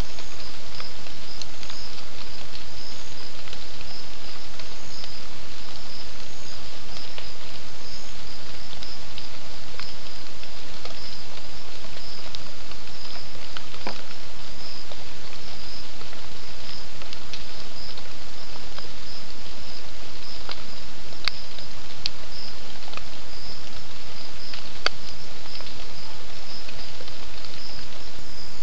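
Night insects, crickets or katydids, chirping in a high, evenly repeated pulse over a steady hiss, with a few scattered faint clicks.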